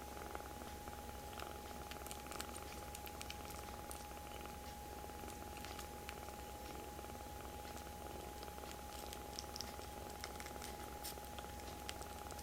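Kitten purring steadily and close, with scattered small clicks.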